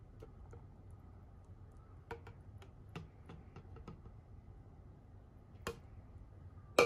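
Faint scattered ticks and small wet clicks as a thick blended fruit-and-milk shake is poured from a plastic blender jug into a glass, over a low steady room hum. A sharp click comes just before the end.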